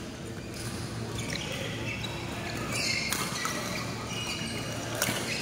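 Badminton rally: two sharp racket strikes on the shuttlecock, about three seconds in and near the end. Between them come short high squeaks of court shoes and footwork on the court floor.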